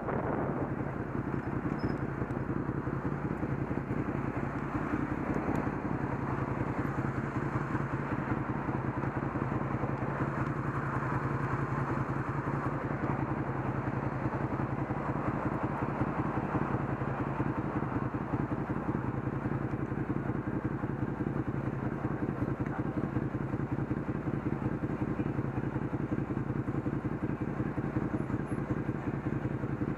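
A vehicle's engine idling steadily with a constant low hum while the vehicle sits stopped.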